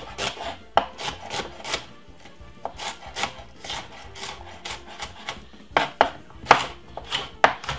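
Chef's knife chopping vegetables on a wooden cutting board: an irregular run of sharp knife taps with some scraping, busiest near the end.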